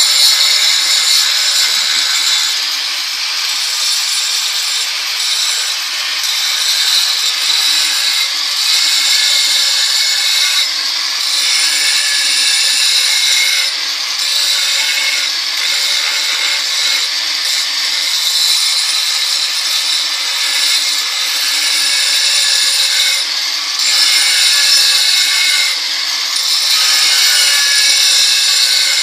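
Angle grinder fitted with a Ø125 mm diamond combination blade (Gift Duo II), grinding the edge of a granite slab. A steady high whine and grinding hiss that rise and dip slightly as the blade is moved along the stone.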